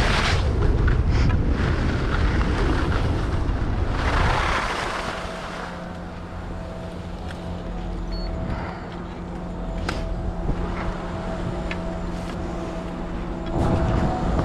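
Wind buffeting the camera's microphone and skis scraping over packed snow during the run, ending in a burst of hissing snow about four seconds in as the skier slows and stops. After that comes the steady hum of ski lift station machinery, with scattered clicks and knocks and the scuff of skis on snow as the skier moves toward the loading point.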